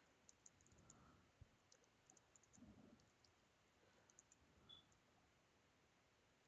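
Faint computer keyboard typing: scattered soft key clicks over near silence, dying away for the last second or so.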